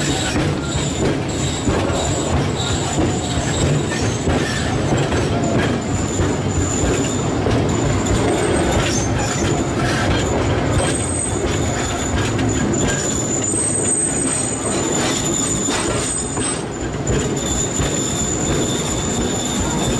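Narrow-gauge train carriages rolling along the track, heard from aboard: a steady rumble and clatter of the wheels, with a thin high wheel squeal that comes and goes, stronger in the second half.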